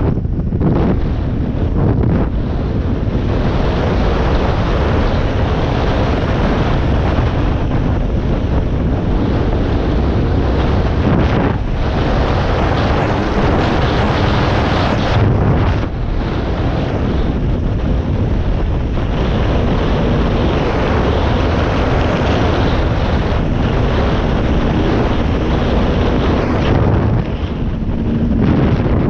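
Dirt bike engine running under way, mixed with heavy wind buffeting on a helmet-mounted microphone. Loud and steady, with a few brief dips.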